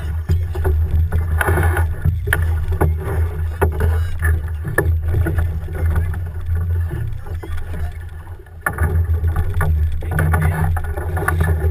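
Big voyageur canoe on the water: paddles splashing and knocking at irregular intervals over a steady low rumble of wind on the microphone.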